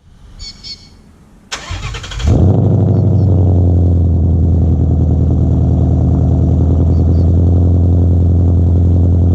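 Ford Mustang GT's 5.0-litre V8 starting: the starter cranks briefly about a second and a half in, the engine catches about a second later, and it settles into a loud, steady idle.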